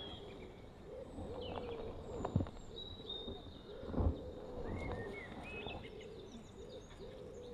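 Small birds chirping and calling in short high notes, with a couple of brief soft knocks, the louder one about four seconds in.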